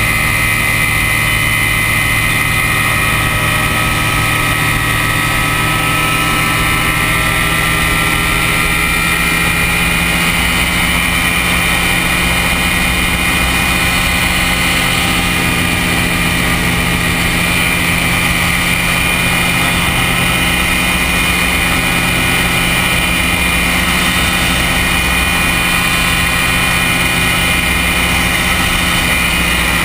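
Ultralight aircraft's engine and propeller droning steadily in flight, heard from the open cockpit, the pitch drifting only slightly.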